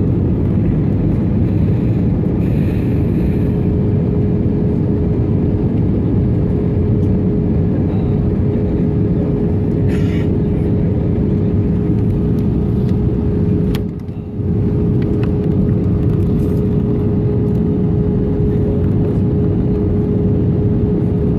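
Jet airliner cabin noise during descent: a steady roar of engines and airflow with one steady hum tone running through it. About 14 seconds in, the sound briefly drops after a sharp click, then returns.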